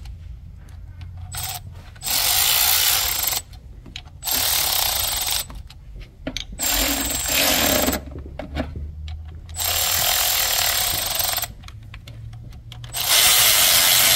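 Handheld power tool run in five short bursts, each one to two seconds long, as it spins the cam cap bolts down on an M156 V8's cylinder head.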